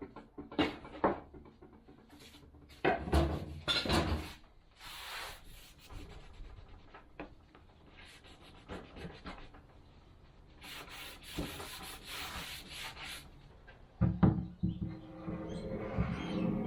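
Wooden parts being handled and worked by hand: irregular knocks, with scraping or rubbing strokes and a few duller thuds near the end.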